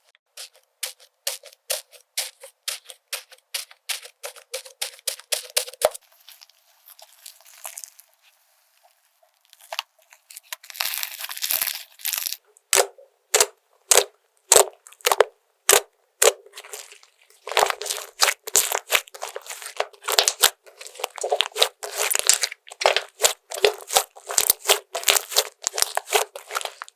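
Slime being squeezed and pressed, a run of crisp crackling pops and clicks; it thins out and goes quieter for a few seconds after about six seconds in, then turns into denser crackling again.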